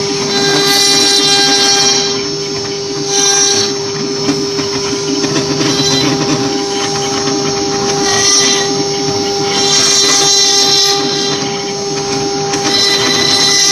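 CNC wood-carving router running: the spindle gives a steady high whine, with waves of hissy cutting noise rising and falling every few seconds as the bit works the wood.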